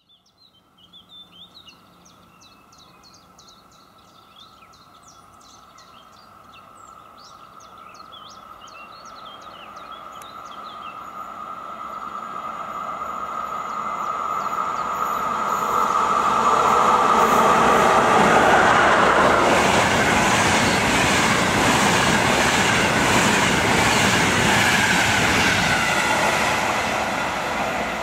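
Birds chirp while an electric-hauled passenger train approaches. The rumble of wheels on the rails builds steadily for about ten seconds and stays loud as the train runs past.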